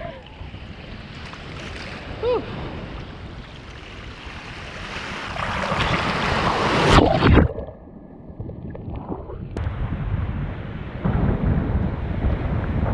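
Waves washing on a beach with wind buffeting the microphone; the surf swells to its loudest about six to seven seconds in, then drops off suddenly.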